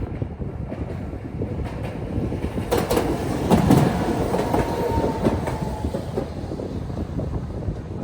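Tokyo Sakura Tram streetcar running over the crossing: a steady rumble with wheels clicking over the rail joints. A thin high tone is held for a couple of seconds in the middle.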